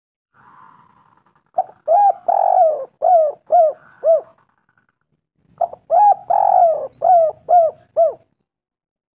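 Spotted dove (tekukur) cooing: two phrases of short, arched coos, each with one longer drawn-out note near its start.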